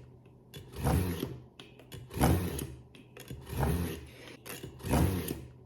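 Serrated bread knife drawn through the honing side of an EdgeMaker Pro sharpener with light pressure: four strokes about a second and a quarter apart, each a short scrape that rises and falls in pitch.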